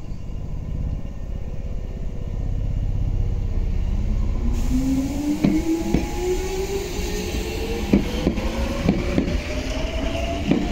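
Nose Electric Railway Series 5100 electric train (ex-Hankyu 5100) pulling away from a standstill: its traction motor whine rises steadily in pitch as it accelerates from about two seconds in. From about five seconds in, the wheels clack over rail joints several times.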